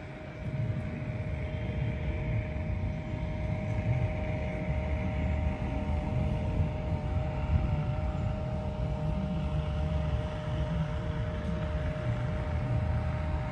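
City street traffic: a steady rumble of vehicles running, with a constant droning hum throughout.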